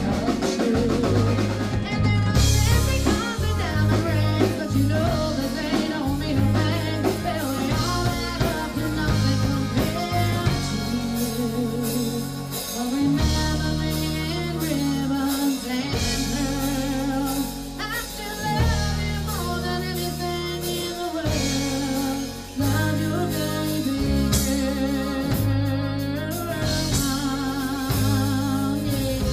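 Live band playing a song: a woman singing into a microphone over drum kit, electric guitar and keyboard.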